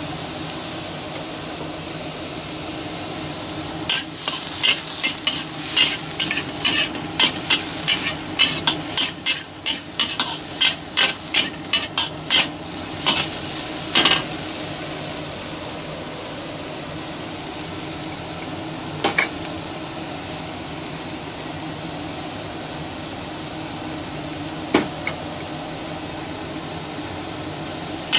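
Bitter gourd and garlic sizzling in hot oil in a pan, stirred with a spatula. Brisk scraping strokes, about two a second, run for about ten seconds a few seconds in, then only an odd scrape over the steady sizzle.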